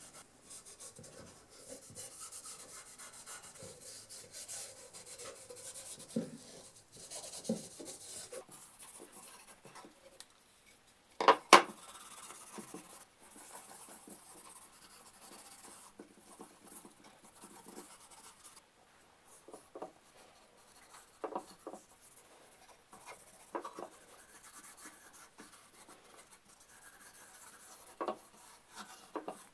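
Cloth rubbing over a wooden saw handle, a soft scratchy scuffing as finish is worked into the apple wood. A sharp knock sounds about eleven seconds in, with a few lighter knocks of the handle against the bench later on.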